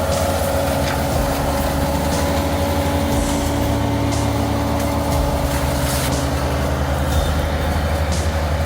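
Heavy vehicle engine running steadily under load, with a steady whine above the engine note and a few light knocks.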